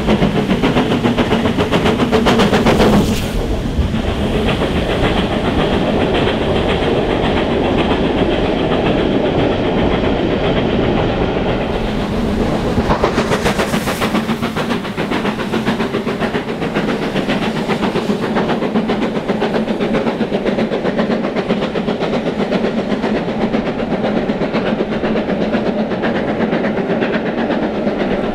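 GWR Castle Class 4-6-0 steam locomotive working hard with a train, its rapid exhaust beats passing right beneath and then heard again briefly going away. After that, the steady rumble and clickety-clack of its coaches running past over the rail joints.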